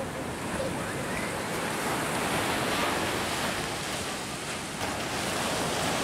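Sea surf breaking and washing up a sandy beach: a steady rush of waves that swells a little toward the end.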